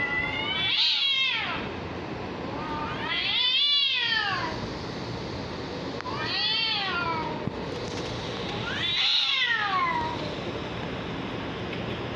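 Cats in a face-off yowling: four long drawn-out calls, each rising and then falling in pitch, about three seconds apart, the warning cries of a territorial standoff. A steady background noise runs underneath.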